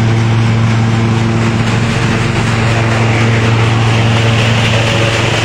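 Hazelnut husking thresher (patoz) running steadily: a loud, even machine drone with a strong low hum.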